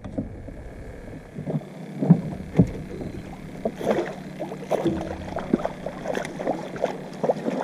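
Irregular small knocks and clatter of handling in a small fishing boat, with two sharper knocks about two seconds in.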